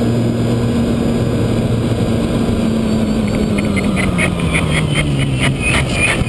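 Onboard sound of a ParkZone Radian electric RC glider flying under power: the electric motor and propeller give a steady hum over a rush of wind, and the hum's pitch drops slightly about five seconds in.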